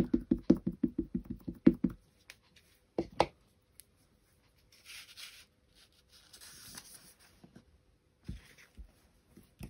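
Clear acrylic stamp block with a tree stamp tapped quickly on an ink pad, about six taps a second for two seconds, inking the stamp. A few single knocks follow as the stamp is set down and pressed onto the card, with a faint rustle of paper in between.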